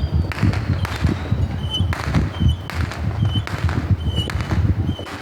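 Aerial fireworks going off in a quick, regular run of bangs, a little more than one a second, over a low continuous rumble.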